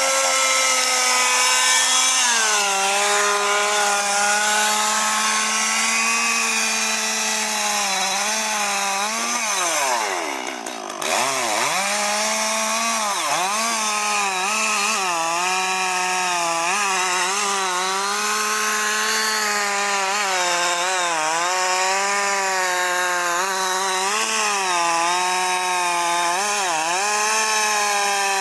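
Chainsaw running at high revs while cutting into wood, its pitch dipping again and again as the chain loads up in the cut. About ten seconds in, the revs fall away steeply and it goes briefly quieter, then it revs back up and keeps cutting.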